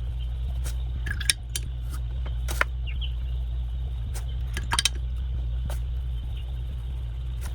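Steady low hum with a few light clicks and taps of a paintbrush against a water cup as water-soluble pencil swatches are wetted, the sharpest tap a little over a second in and a quick double click near five seconds.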